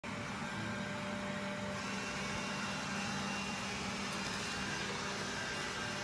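Robot vacuum cleaner running: a steady whir with a constant low hum.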